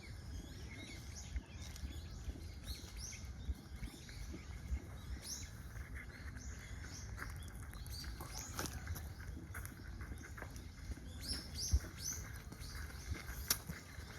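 Small birds chirping: short, high calls in little clusters every second or two, over a steady low rumble of wind on the microphone.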